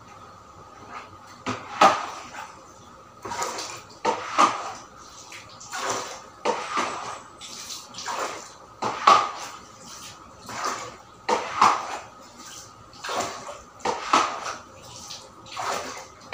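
Long-handled brush scrubbing a wet tiled floor in repeated strokes, about one a second, starting a second or so in.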